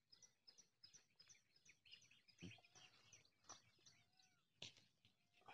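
Faint birdsong: a quick run of short, high chirps, about four a second, with three soft knocks in between.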